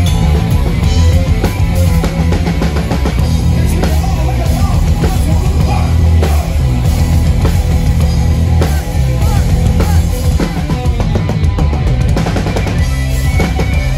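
Live rock band playing loud, heavy rock, heard from right behind the drum kit: kick drum, snare and cymbals dominate over electric guitars and bass.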